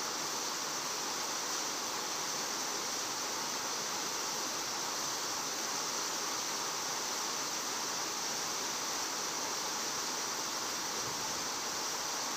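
A steady, unchanging outdoor hiss at a constant level, with no distinct events.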